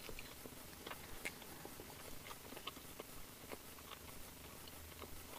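Faint chewing of a chicken nugget, with irregular small mouth clicks.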